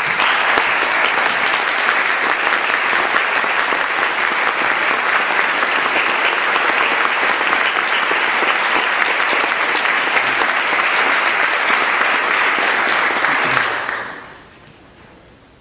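Audience applauding steadily, fading out quickly near the end.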